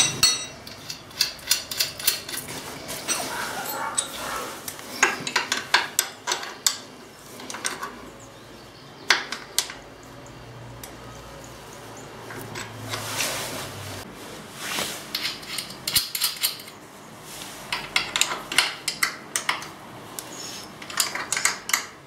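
Steel open-end wrenches clinking and clicking on a motorcycle's drive-chain adjuster bolt and locknut as they are fitted on and turned. The sharp metallic clicks come in clusters.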